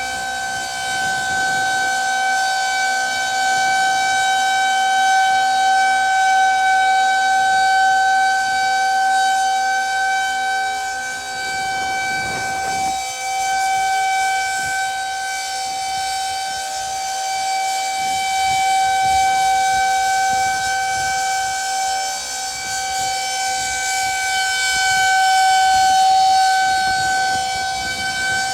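Federal Signal 2001-130 rotating electromechanical outdoor warning siren sounding the steady alert tone of a siren test. One unbroken pitch that swells and fades slowly in loudness.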